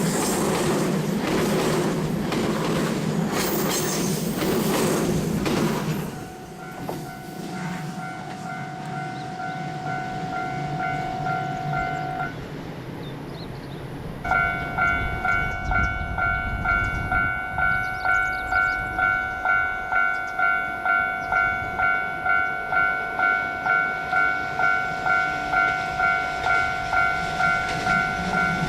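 An electric train runs over the level crossing with loud wheel clatter for about the first six seconds. The crossing's electronic warning bell keeps ringing after it, falls silent for a couple of seconds, then starts again with a steady ding-ding a little under twice a second as the next train approaches.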